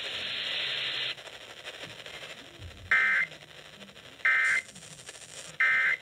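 Emergency Alert System end-of-message data tones from an FM broadcast, heard through a portable radio's speaker: after about a second of hiss, three short identical bursts of screechy digital tones, about a second apart, marking the end of a severe thunderstorm warning.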